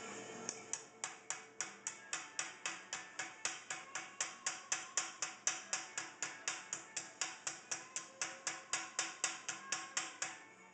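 Small hammer tapping steadily on a chasing tool against a metal acanthus leaf held in a vise, during repoussé work: about four light blows a second, each with a short metallic ring. The tapping starts about half a second in and stops shortly before the end.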